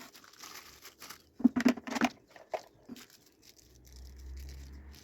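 Vacuum cleaner parts and accessories being handled: rustling with a series of clicks and light knocks. A low steady hum comes in over the last second or so.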